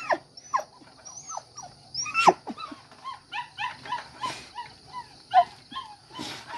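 Dogs whining in short, high, falling whimpers, about two a second, with a sharper, louder yelp about two seconds in and another about five seconds in. It is the excited whining of hunting dogs working a rat's scent at a hole.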